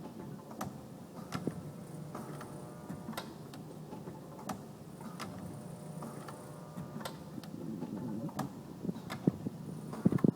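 A forming machine runs with a steady hum while a sharp tick comes about once a second, slightly unevenly: the abnormal noise heard during the forming process. A quick rattle starts near the end.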